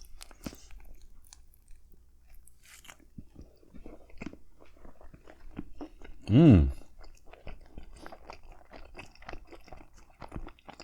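Close-up eating sounds: biting and chewing a crusty hoagie roll filled with turkey, mashed potatoes, gravy and cranberry sauce, with many small wet clicks and crunches. A short hummed 'mm' about six seconds in is the loudest sound.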